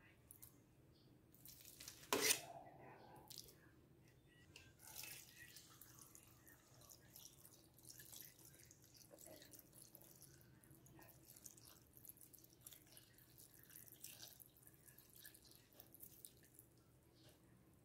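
Evaporated milk poured from a can into a glass blender jar onto mashed purple yam: a faint, uneven trickle and splash. A single knock comes about two seconds in.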